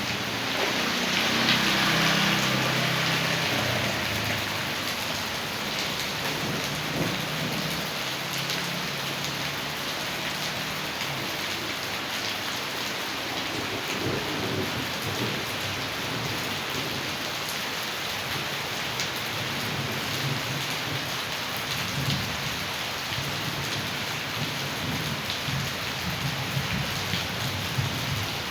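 Heavy rain pouring down with rainwater runoff rushing, a steady wash of noise. About a second in it swells louder for a few seconds before settling back.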